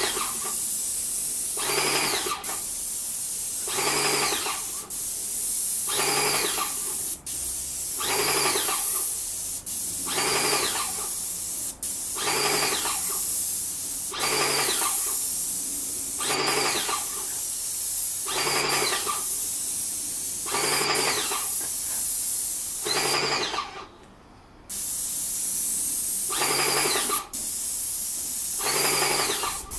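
Airless paint sprayer spraying: a steady high hiss of paint from the fine-finish tip, with the pump surging in a regular rhythm about every two seconds. The hiss cuts out for about a second near the end.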